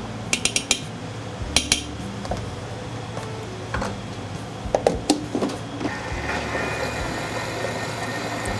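Clinks and knocks of a Thermomix's steel bowl and lid being handled, then about six seconds in its motor starts and runs steadily, slowly stirring and heating milk, cream and grated parmesan.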